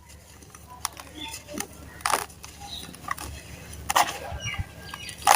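Dry, clumped sand crunching and crumbling in a tub: a handful of separate sharp crunches a second or so apart, the loudest at the very end.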